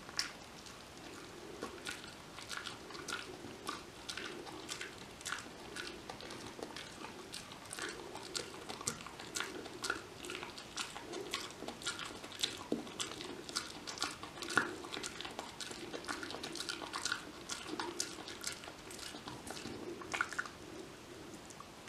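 Kai Ken dog chewing a Purina Dentalife dental chew stick: many irregular clicks and crunches of teeth on the chew.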